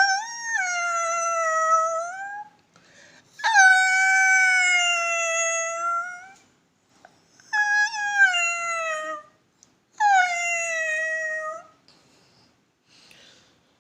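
A man vocally imitating a dog's contented whine after eating, its 'sound of satisfaction': four long, high whining calls, each sagging slightly in pitch toward its end.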